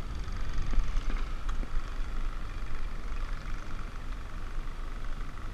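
Wind buffeting the microphone with a steady hum from the boat's motor, and light water sloshing as a pike is held in the water beside the boat.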